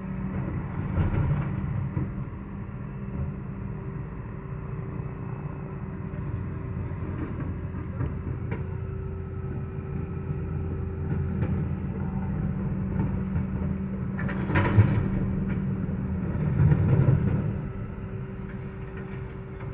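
Heil Powerlink refuse truck running steadily while the bin lift empties blue wheelie bins, heard through a closed window. Occasional knocks and clatter from the bins, with a sharp bang a little before the end and a swell of noise just after it.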